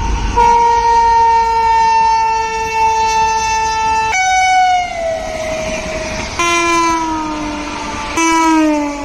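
Indian Railways locomotive air horns in four blasts back to back. The first is steady and lasts about four seconds; the next three are shorter and each slides down in pitch, the pitch jumping abruptly from one blast to the next.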